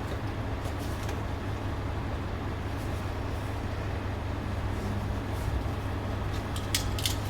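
Car engine idling steadily, a low even hum, with a few faint clicks near the end.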